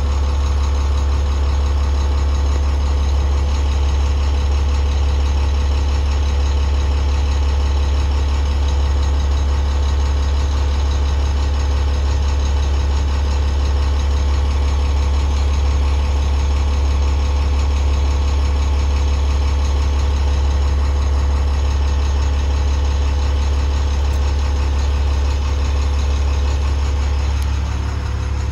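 2008 Maxxforce DT466 inline-six turbo diesel idling steadily at about 700 rpm, heard from inside the truck's cab.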